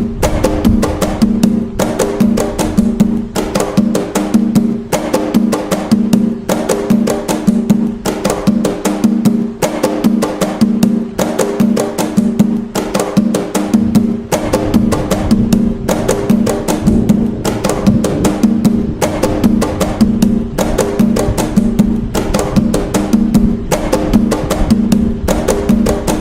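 Atabaque hand drums playing the Umbanda toque nagô rhythm in a fast, dense, unbroken stream of strokes. Deeper low strokes fill in from about halfway through.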